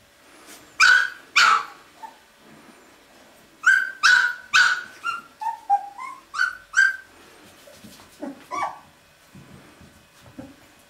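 Young Drentsche Patrijshond puppies giving short, high-pitched yips and squeaky little barks: two about a second in, a run of five or six with a few small rising squeaks between about four and seven seconds, and two more near the end.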